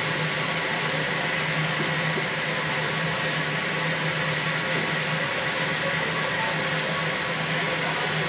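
Steady hiss of steam venting from the Yosemite Mountain Sugar Pine Railroad's Shay locomotive No. 10 as it stands with its fire up, over a low even hum, unchanging throughout.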